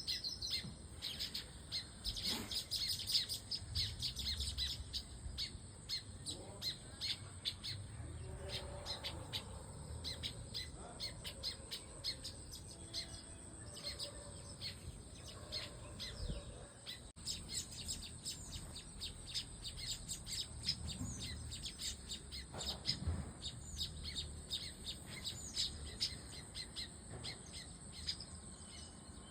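Many small birds chirping, a dense run of short high chirps throughout, busiest in the first few seconds, over a steady thin high-pitched tone.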